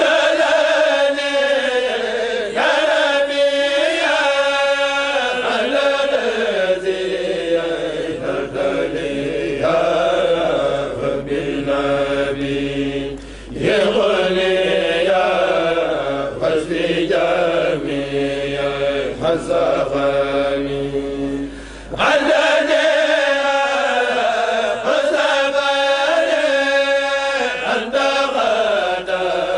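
A kourel of male voices chanting a Mouride khassida together, unaccompanied, in long melodic phrases. There are short breaks for breath about 13 and 22 seconds in.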